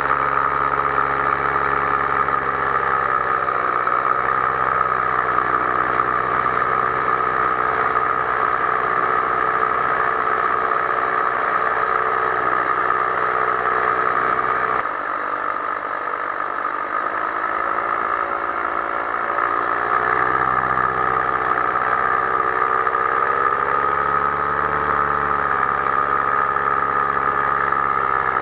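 Powered paraglider's paramotor engine running steadily, its pitch wavering slightly at times. About halfway through it drops a little in loudness for a few seconds, then picks up again.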